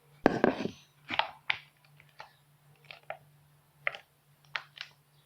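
Irregular handling noises of slime ingredients, a bowl and a spoon: a longer squelching rustle just after the start, then about seven short clicks and squishes.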